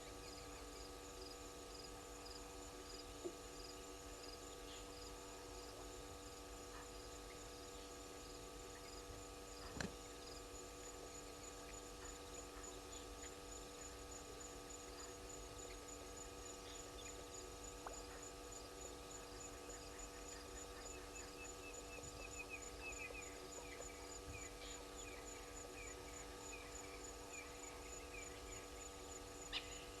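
Faint waterhole night-ambience: insects chirping in a fast, even pulse over a steady electrical hum. There is a single knock about ten seconds in, and a couple of sharp clicks near the end.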